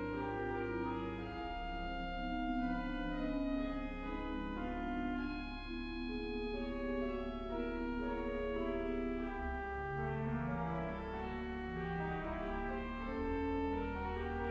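Durham Cathedral's pipe organ playing a slow passage in several parts: held pedal bass notes that change a few times, under upper voices moving from note to note.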